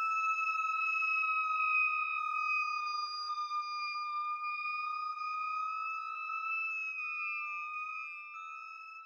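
The song's closing note: one high held electronic tone with a slight waver in pitch, slowly fading out near the end.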